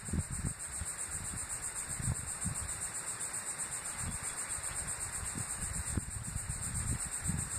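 Uneven low gusts of wind buffeting the microphone, over a steady, high-pitched, rapidly pulsing insect trill.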